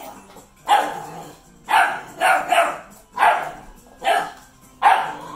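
Puppy barking at a cluster of jingle bells on the floor: about seven short, sharp yaps in quick succession.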